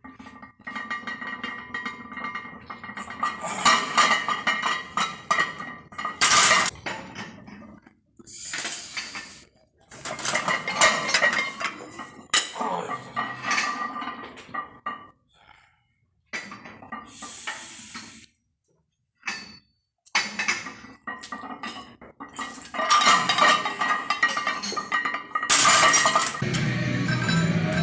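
Clinking and rattling of the iron plates on a heavily loaded barbell during back squats. It comes in repeated bursts of metallic clinks with short quiet gaps between them.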